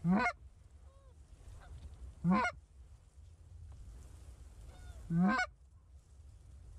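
Geese honking: three short, loud honks a couple of seconds apart, each rising in pitch, over a steady low rumble of wind on the microphone.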